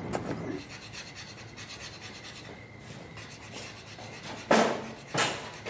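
Faint rustling, then two short, loud sniffs less than a second apart near the end, like someone smelling the air.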